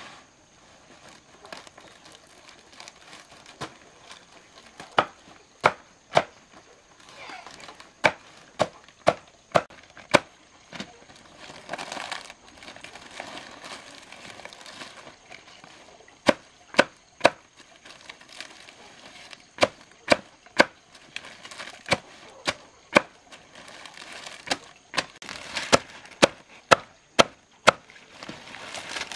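Wood being struck: a long series of sharp knocks in irregular runs, about two a second, with a faint haze of rustling between them.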